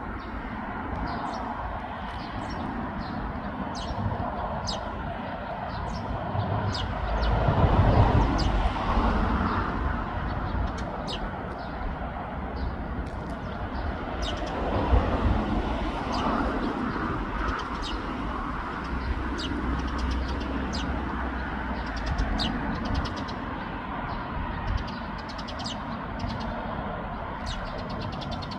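Eurasian tree sparrows chirping: many short, high chirps scattered throughout, over a steady background of traffic noise that swells around eight seconds in and again around fifteen seconds in.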